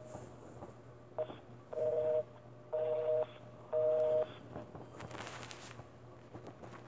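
Telephone busy signal from a phone's speaker: three beeps of a low two-note tone, each about half a second long and half a second apart, the sign that the dialled line is busy and the call is not going through. A short blip comes before them and a brief hiss after.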